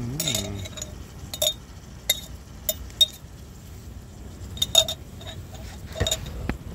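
Sharp clinks of a metal knife knocking on the mouth of a glass sardine jar as the fish and oil are tipped out into a cooking pot: about eight separate clinks, spread unevenly, each with a short ring.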